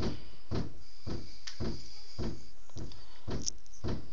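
HP TouchPad's speaker stuck in a glitch during video playback, repeating a short garbled burst of sound just under twice a second. The sound is part of a playback fault that also scrambles the screen.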